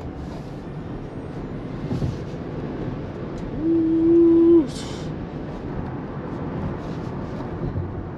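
Road and tyre noise inside the cabin of a Tesla Model Y as it accelerates. A little over three seconds in, a car horn sounds one loud steady note for about a second.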